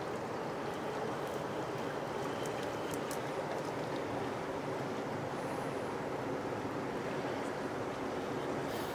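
Steady rush of a broad, fast-flowing river.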